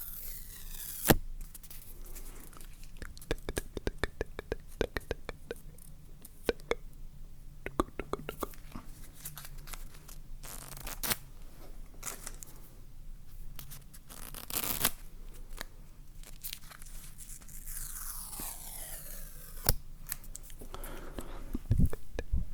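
Close-miked ASMR trigger sounds: scratching, rubbing and tearing-like handling of objects, with many sharp clicks and taps and several long sweeping scratchy strokes.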